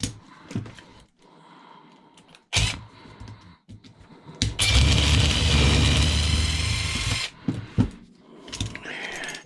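A few clanks of tools being handled, then a small power tool's motor runs steadily for almost three seconds in the middle, followed by more clanks.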